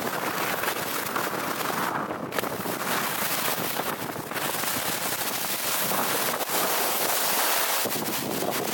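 Skis scraping and hissing over icy groomed snow while skiing downhill, with wind rushing over the microphone. The high hiss drops away briefly twice, about two and four seconds in.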